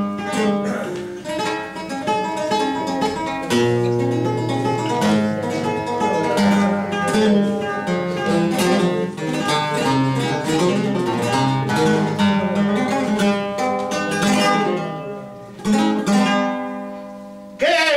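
Flamenco guitar playing a fandango introduction: quick plucked runs broken by strummed chords, with a short pause about three-quarters of the way through.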